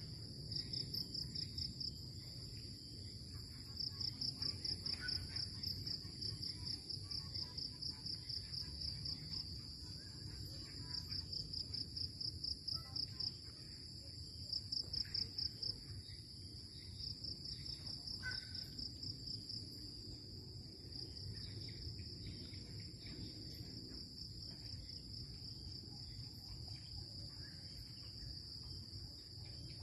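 Night insects trilling: fast pulsed trills a second or two long that repeat again and again over a steady high buzz, with a low background rumble.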